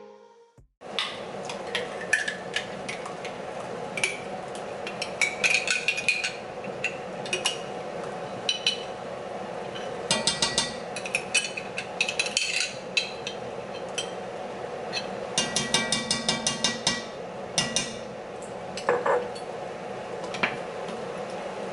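A metal spoon scraping and tapping against the inside of an Alfredo sauce jar and the rim of an enamelled cast-iron pot as thick sauce is spooned out, coming in clusters of quick clinks, over a steady low hum.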